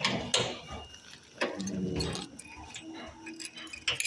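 Keys jangling and a metal padlock clicking against a door latch as the door is locked, a series of small irregular clicks.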